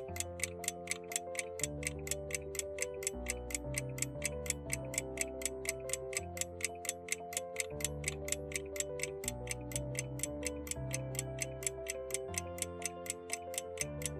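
Countdown-timer sound effect: a clock-like tick about four times a second, over soft background music with held notes that change every second or two.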